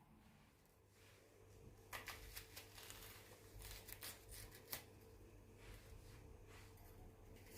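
Near silence with a faint steady hum, and a few seconds of light clicks and rustling of small objects being handled.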